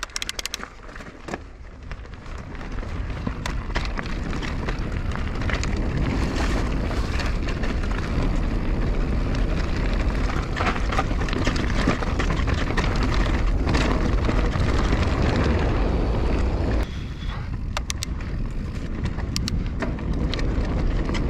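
Wind rumbling on the action-camera microphone as a Canyon Torque enduro mountain bike rolls down a dirt and gravel singletrack, growing louder over the first few seconds as it gathers speed. Tyres crunch on the gravel and the bike rattles and clicks over stones throughout.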